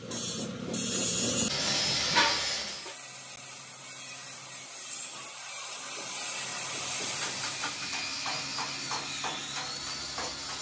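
Hand blade scraping and cutting rubber repair patches on a tractor tire: a steady scratchy hiss, with a sharp click about two seconds in.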